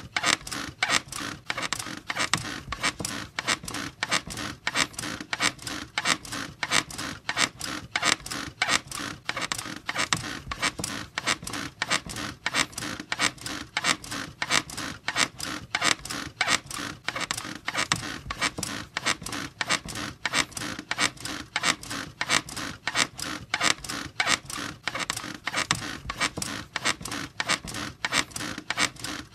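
A bed squeaking in a steady, even rhythm, about two to three creaks a second, repeating without a break.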